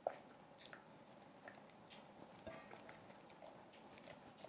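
Faint stirring of a liquid surfactant mixture with a silicone spatula in a glass jug: soft wet scraping and small clicks, with one sharper tap just after the start.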